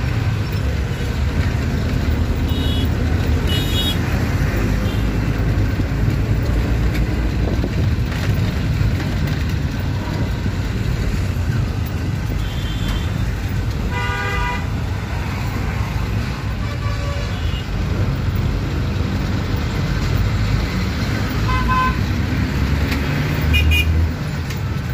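Steady low rumble of a moving vehicle's engine and road noise heard from inside, with road-traffic horns tooting several times over it, loudest about fourteen seconds in.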